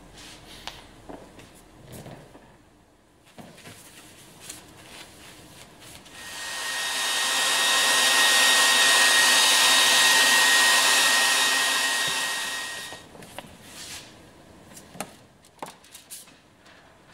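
Small hand-held hair dryer blowing hot air, with a steady whine over the rush of air. It comes up about six seconds in, runs for about seven seconds and winds down. It is heating a drawing on aluminium foil to set it onto the foil for cola lithography. Light handling clicks and knocks come before and after it.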